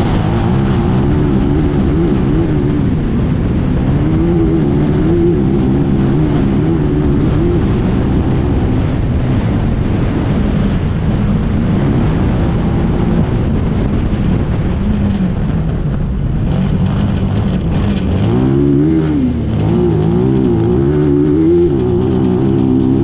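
Class 10 off-road race buggy's engine heard from on board, running hard at speed on a dirt track, its pitch rising and falling with the throttle. About 18 seconds in the pitch drops sharply and climbs again.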